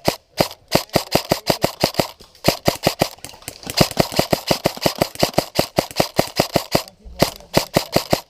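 Airsoft gun fired in quick single shots, about six a second, in several strings with short pauses between them. Loud and close.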